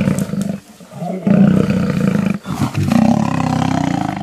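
Fighting male lions growling and roaring: deep, loud calls in three long stretches, broken by short pauses about a second in and again about two and a half seconds in.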